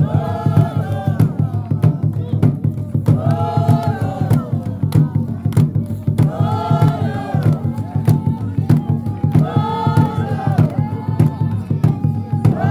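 A group of voices singing a short chant-like phrase that comes round about every three seconds, over fast, steady drumming: Xhosa intlombe ceremonial song and drum.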